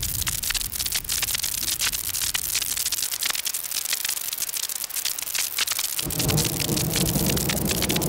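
Synthesized campfire crackle from the Korg iMS-20 synthesizer app: a steady hiss shot through with dense, irregular sharp pops. About six seconds in, a low rumbling layer comes in under the crackle, like the roar of the flames.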